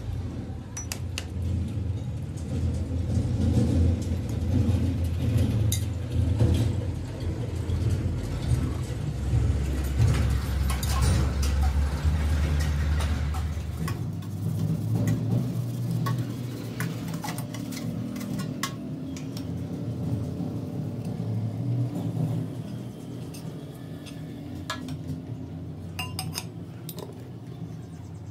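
Metal hydraulic jack parts clinking and scraping as they are handled and washed in a pan of oil, over a steady low rumble that is heavier in the first half.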